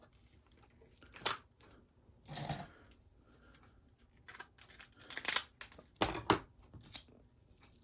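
Diamond painting kit packaging being handled and unwrapped: intermittent rustling and crinkling with a few sharp clicks. The handling is loudest between about five and six and a half seconds in.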